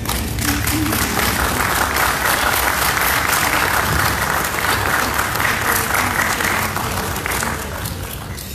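Audience applause: many hands clapping together, swelling and then fading out near the end.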